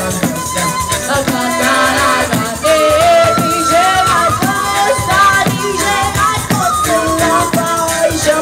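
Live Southern Italian folk music: a woman sings a wavering melody over the jingling, rhythmic beat of a tamburello (large frame drum with jingles), with acoustic guitar and accordion accompanying.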